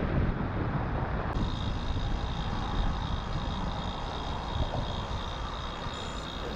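Steady rushing noise of a road bicycle being ridden: wind on the microphone and tyres rolling on pavement, with a low rumble. A faint steady high whine joins about a second in.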